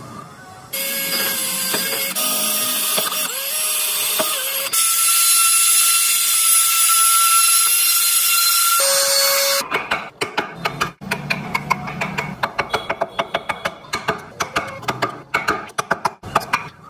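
Trim router cutting into wood, a steady whine over a loud hiss, starting about a second in and stopping a little after halfway. Then a quick, uneven run of short scraping strokes, several a second, from hand carving in the wood.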